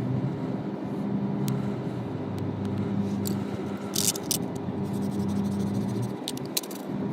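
A motor running steadily with a low hum, with a few sharp clicks about four seconds in and again near the end.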